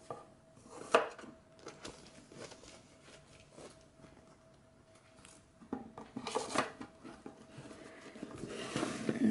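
Paper inserts, cards and a booklet being handled and slid back into the compartments of a cardboard box: rustling and light knocks, with one sharp tap about a second in and a busier patch of rustling later.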